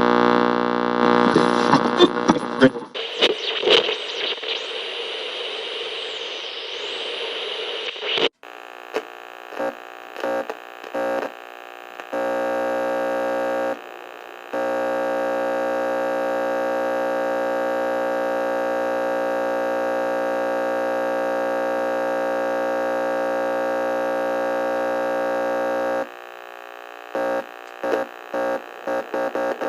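Radio being tuned across the dial: a station's sound breaking up in the first few seconds, then hissing static with a whistle that sweeps down and back up. About eight seconds in, a steady buzzing hum takes over, cutting in and out in short stretches, holding for about twelve seconds, then stuttering again near the end.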